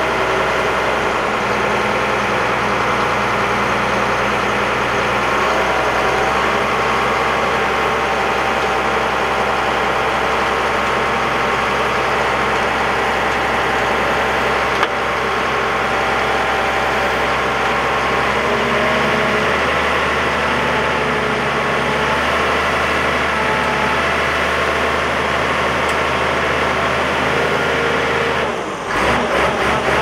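Heavy diesel engines of a crawler bulldozer and a loaded dump truck running steadily at a working idle during a push recovery, the engine note shifting about five seconds in and again around twenty. Near the end there is a brief dip, then a fast, even clatter.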